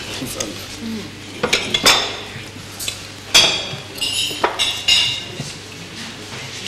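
Plates and cutlery clinking as dishes of food are set down on a restaurant table: about five separate sharp clinks, some ringing briefly.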